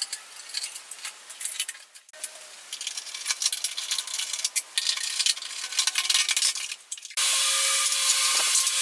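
Hand-tool work on scooter parts: metal clinks, jangles and scraping, broken by abrupt edits. About seven seconds in, it changes to a steady hiss.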